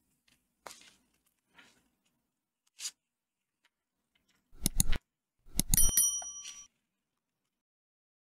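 Subscribe-button animation sound effect: loud clicks a little past halfway, then a short bright bell ding that rings for under a second. Before that there are only a few faint soft sounds from knitting with bamboo needles.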